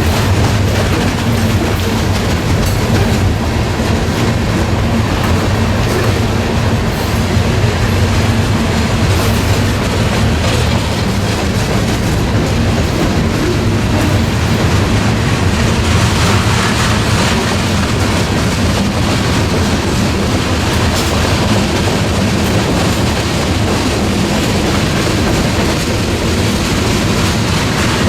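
A train rolling past on the rails: steady loud wheel noise with the clickety-clack of railcars going over the track joints.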